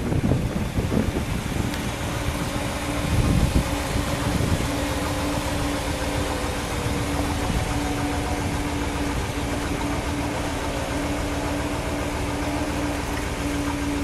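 1960 Ford Thunderbird's power convertible top folding down into the rear deck with the 430 V8 idling; a steady hum sets in about two seconds in. Wind gusts on the microphone near the start and again around three to four seconds in.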